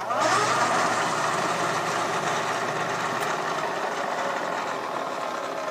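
Bridgeport milling machine running steadily, its spindle reversed to back the 14 mm tap out of the freshly tapped spark plug hole in an aluminium shovelhead cylinder head. The sound stops suddenly at the end.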